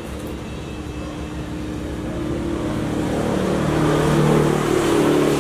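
A motor engine droning steadily, growing louder from about two seconds in.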